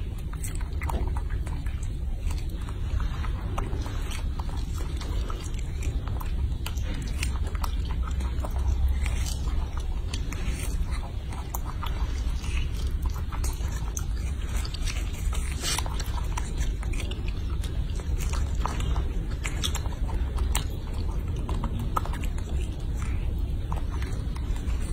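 Baby macaque chewing and biting into strawberries: scattered short, wet smacking clicks, irregular throughout, over a steady low hum.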